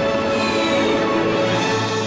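Cartoon soundtrack music: sustained held notes with a swelling, shimmering texture.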